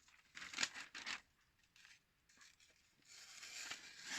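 Soft rubbing and scraping: a short stretch near the start and a longer one from about three seconds in.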